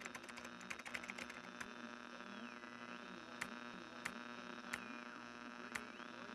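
Typing on a computer keyboard: a quick run of keystrokes, then single key presses about every two-thirds of a second. Under it a steady low hum and a high electronic tone that twice slides down in pitch and back up.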